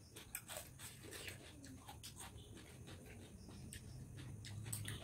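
Faint chewing and crunching of raw cucumber, a scatter of short crisp clicks and mouth noises over a low steady hum.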